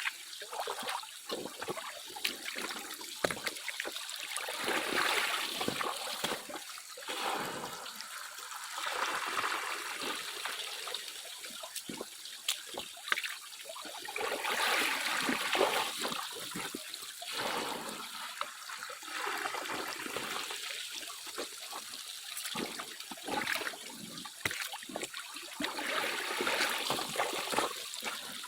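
Water trickling and splashing in uneven swells every few seconds, with a few small clicks.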